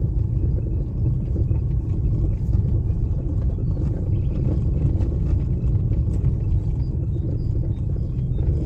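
Steady low rumble of a vehicle driving along a rough dirt track, with a few faint short high chirps above it.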